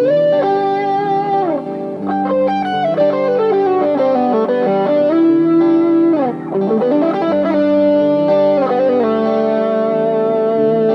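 Fernandes FR-75-3S electric guitar playing a lead line of held notes, sliding and bending smoothly up and down between pitches.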